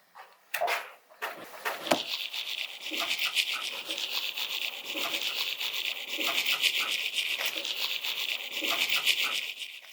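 Fast, steady scrubbing or rubbing with a rapid back-and-forth flutter, starting about two seconds in after a few knocks, with light knocks scattered through it.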